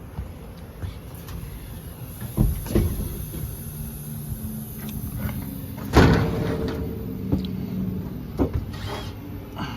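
Sheet-metal clanks and knocks from work on a rooftop HVAC unit's cabinet, over a steady low hum. The loudest knock comes about six seconds in and rings briefly.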